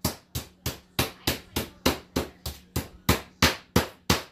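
Meat tenderizer mallet pounding a butterflied beef London broil through wax paper on a plastic cutting board, about three quick, even blows a second. The meat is being flattened to about a quarter inch thick.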